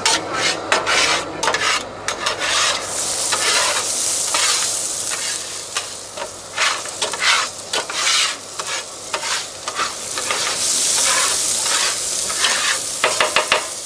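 Chopped red onions sizzling in oil on a flat steel tawa griddle, with a metal spatula scraping and knocking on the griddle plate as they are stirred. The sizzle swells twice, about a third of the way in and again near the end, and the spatula knocks come thick and fast just before the end.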